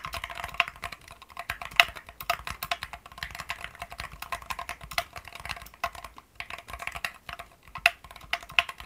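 Typing on a modded Keychron Q1 mechanical keyboard: a steady, dense run of keystroke clacks, with a few louder strokes standing out, such as one about two seconds in and one near the end.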